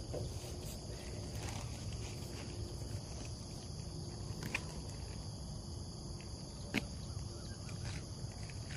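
Steady high-pitched chirring of insects over a low, even background hum, with two faint sharp knocks in the second half.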